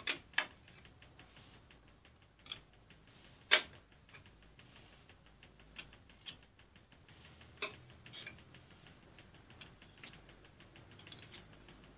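Scattered sharp clicks and taps of a metal knife blade on the rim of a glass verrine as the cream is scraped level across its top, over a faint, even ticking.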